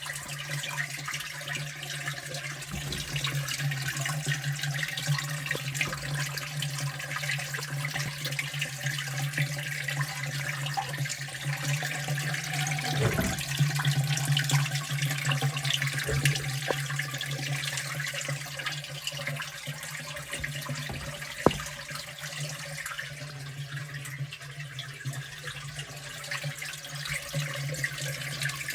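Water running and splashing steadily over a constant low hum, with a single sharp click about two-thirds of the way through.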